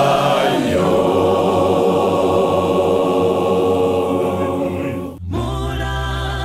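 Church choir singing a hymn, with lead voices sung into microphones over the group. About five seconds in the sound breaks off for a moment, and steady held notes follow.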